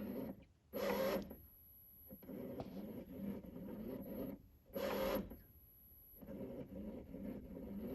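Honda i-SHIFT clutch hydraulic system running its scan-tool automatic bleeding cycle: an electric pump runs steadily, with a louder surge about every four seconds. The noise is a sign the system, which had made no sound at all before, is now working.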